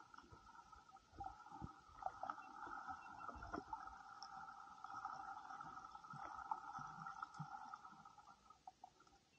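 Underwater, a steady hum of a few held tones with scattered clicks and knocks; the hum fades out near the end.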